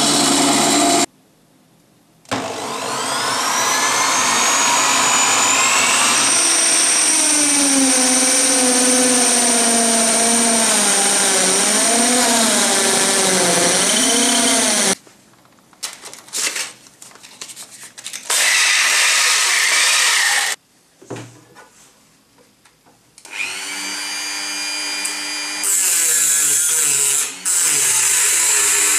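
Power-tool work in quick succession. A band saw briefly cuts a block of wood. Then a corded electric drill held in a drill stand spins up with a rising whine and runs, its pitch dipping and wavering as the bit bores into wood. Later a Dremel 4000 rotary tool runs at high speed with a high-pitched whine.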